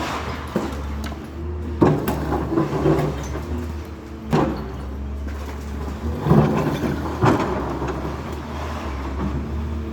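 An engine running steadily, with four loud knocks or clanks at irregular intervals.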